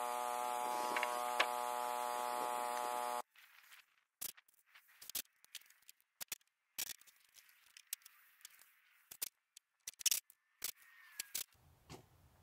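A steady electrical hum that cuts off abruptly about three seconds in, followed by scattered faint clicks and knocks with quiet between them.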